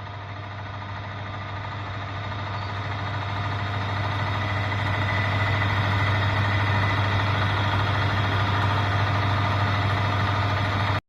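Homemade saw driven by a salvaged washing-machine electric motor, running steadily with a low hum. It grows louder over the first half, holds steady, then cuts off abruptly near the end.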